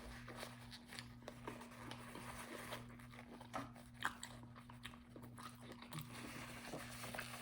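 Faint close-up eating sounds: chewing, with scattered small crunches and wet mouth clicks.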